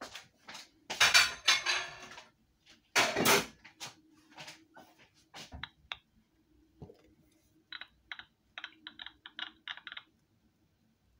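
Washing-up clatter of dishes and cutlery, with two loud clatters in the first few seconds and scattered lighter clinks. Near the end comes a quick run of about a dozen light taps, like typing, thin and muffled in tone.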